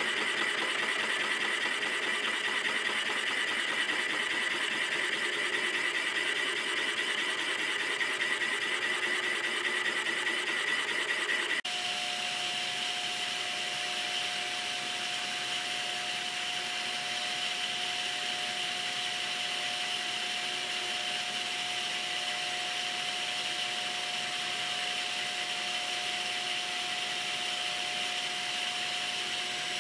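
Milling machine spindle running with a boring head cutting the bore of a cast-iron bearing block, a steady machining sound. About a third of the way in the sound changes suddenly to a steady hum over an even hiss, with a shop vacuum running at the cut to pick up the cast-iron chips.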